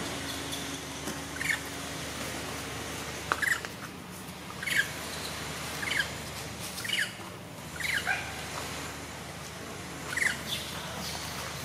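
Baby macaque squeaking: short, high calls that fall in pitch, repeated roughly once a second.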